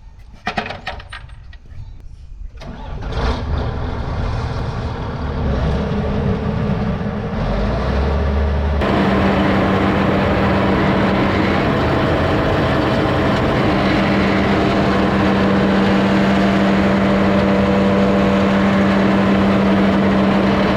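A few clicks and knocks, then a heavy tractor engine comes in and gets louder; about nine seconds in it jumps suddenly to a loud, steady run with a strong droning tone.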